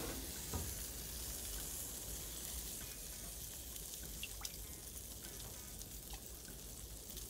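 Ribeye steaks sizzling steadily on a grill, with a few faint light clicks.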